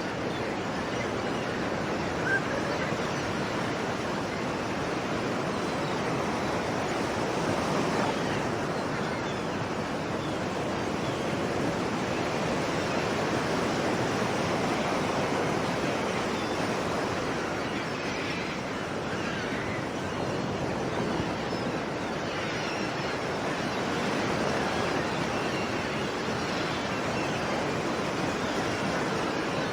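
Sea waves washing on a shore: a steady rush of surf that slowly swells and eases every several seconds.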